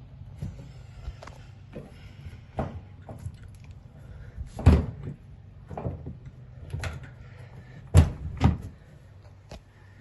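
Irregular knocks and thumps at an LG electric dryer over a steady low hum, the loudest about halfway through and two close together near the end.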